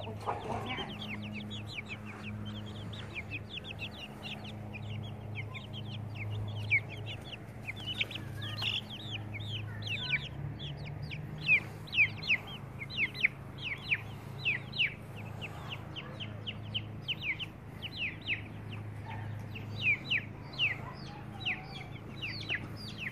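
Young chickens peeping: many short, high chirps that slide downward, several a second, growing busier and louder about halfway through. A steady low hum runs underneath.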